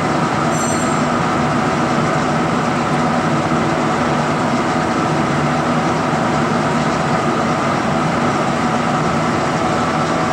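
Steady mechanical hum and whir of running equipment, even throughout, with a short high beep about half a second in.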